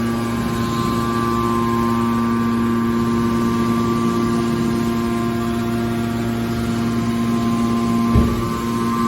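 Metal scrap baler running with a steady machine hum, and a single knock about eight seconds in.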